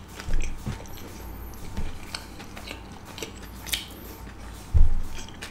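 Close-miked chewing of a butter chicken momo: wet mouth clicks and smacks, with a brief low thump near the end.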